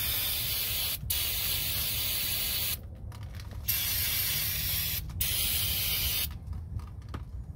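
Aerosol can of brake cleaner spraying in about four long hissing bursts with short breaks between them. It is washing oil residue off the refitted drain plug.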